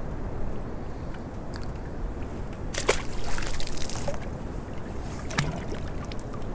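Sea water lapping and sloshing against the hull of a small open boat, with a few sharp clicks of handled tackle; the loudest click comes about three seconds in and is followed by a brief hiss.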